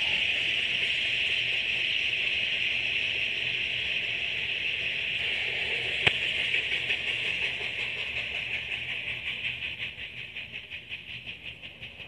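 Freight train passing and then receding: a steady high hiss of the rolling cars fades away over the last few seconds. One sharp knock about six seconds in.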